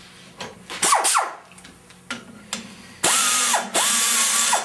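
Clicks of handling and two short falling whines, then about three seconds in a pneumatic die grinder runs up to a loud, steady high whine with a hiss of air, easing off briefly twice. It is the grinder setting depth cuts in a cylinder head's exhaust port.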